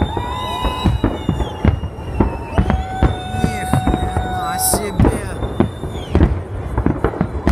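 Aerial fireworks shells bursting in quick succession, a dense run of sharp bangs and crackles, with long steady high whistles sounding over them.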